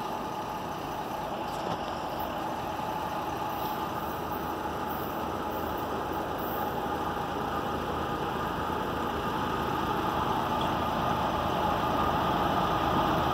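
Diesel locomotives of an approaching freight train running, a steady engine rumble that grows steadily louder as the train nears.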